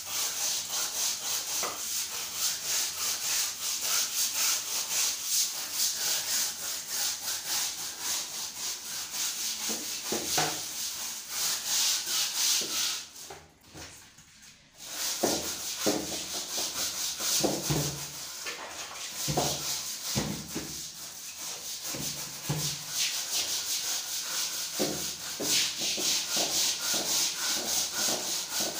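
A stiff hand scrub brush scrubbing ceramic bathroom floor tiles in quick back-and-forth strokes. The scrubbing stops briefly about halfway, then resumes, with several low knocks mixed in.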